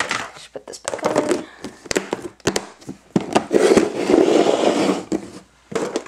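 Hands handling and rummaging through clear plastic storage containers on a wooden workbench: scattered clicks and knocks, with a denser stretch of rustling and scraping about three to five seconds in.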